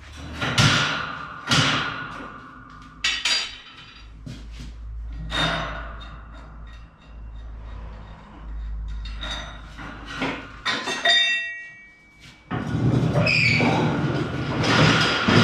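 Metal pieces clanking and knocking on the steel grating of a welding bench, one piece ringing briefly about eleven seconds in. About twelve and a half seconds in, the wheeled steel bench starts rolling across the concrete floor on its metal wheels with a steady, rattling rumble.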